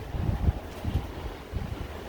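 Blizzard wind gusting, buffeting the microphone in low, uneven rumbles over a steady hiss of blowing wind, with the strongest gust about half a second in.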